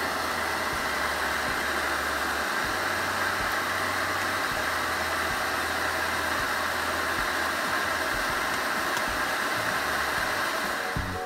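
MSR DragonFly liquid-fuel stove burning white gasoline at a steady flame, giving a constant, even rushing hiss.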